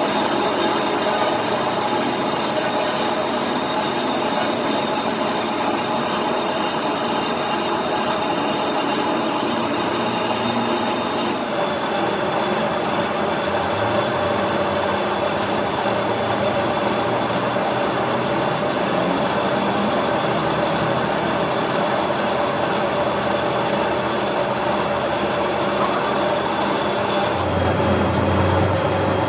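Metal lathe running, a steady mechanical whine over a noisy hiss. The tone shifts slightly about 11 seconds in, and a low hum comes in near the end.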